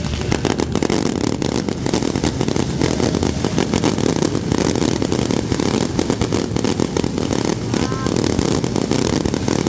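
Fireworks barrage: a dense, continuous run of rapid crackling and bangs over a steady rumble, with a few short rising whistles near the end.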